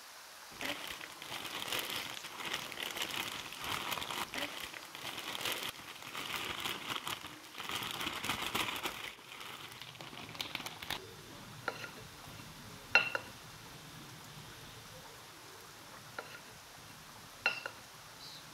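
A plastic bag crinkling as it is shaken and squeezed around chicken wings to coat them in flour, for about ten seconds. It is followed by four short, sharp clinks of a metal utensil against a ceramic plate.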